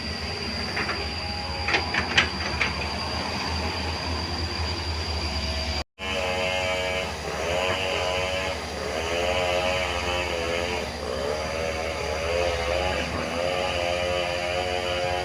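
JCB JS205 excavator working: the diesel engine runs steadily with a few sharp metal clanks about two seconds in. After a brief break, the engine and hydraulics strain under load in a series of whines that rise and fall every second or two.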